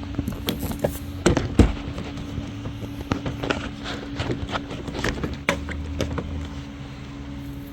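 Plastic car door panel being handled and seated on the door's hooks: a run of sharp knocks, taps and rattles, loudest about a second and a half in, over a steady low hum.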